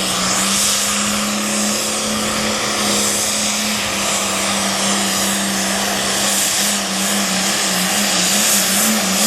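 Super farm pulling tractor's diesel engine running hard under load on a pull, a loud, steady, high engine note that wavers in pitch near the end.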